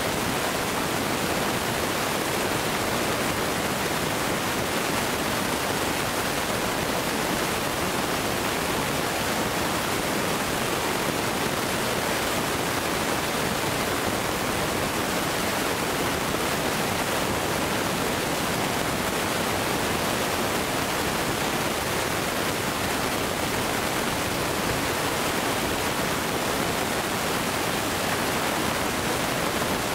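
A steady, unbroken hiss with no bursts or changes in level; no fireworks are going off.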